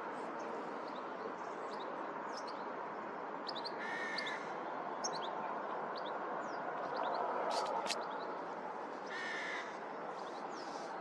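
A crow caws twice, about four seconds in and again near the end, while small birds chirp over a steady rushing background noise. Two sharp clicks come a little after halfway.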